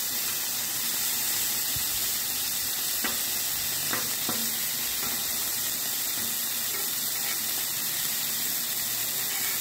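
Freshly flipped beef smash burger patties sizzling on a hot flat-top griddle: a steady hiss of frying fat. A few faint ticks sound about three to four seconds in.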